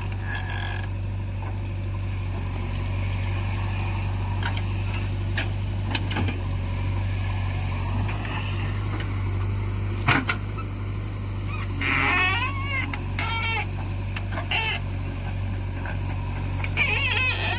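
Diesel engine of earth-moving machinery running steadily at a low, even drone, with a few sharp clicks and knocks. Wavering animal calls sound briefly about twelve seconds in and again near the end.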